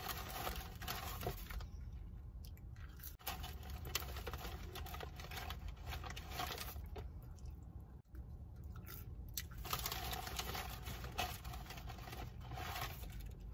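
Faint rustling and small scattered clicks from a hand-held phone being handled close to its microphone, over a steady low hum. The sound drops out suddenly and briefly twice.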